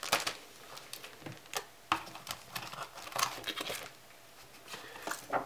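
Plastic bags crinkling and paper rustling as a plastic model kit's bagged sprues, decal sheet and instruction booklet are handled and lifted out of its cardboard box: a run of short rustles and light knocks, dying down about four seconds in.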